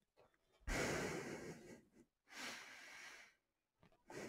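A person breathing close to the microphone: two breaths about a second long, the first the louder, and a fainter one near the end.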